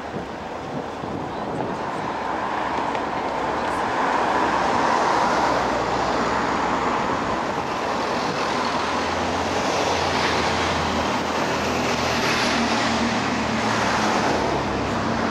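Road traffic passing close by: a steady rush of cars going past, growing louder a few seconds in. A low engine hum joins in the second half as a large box lorry draws alongside.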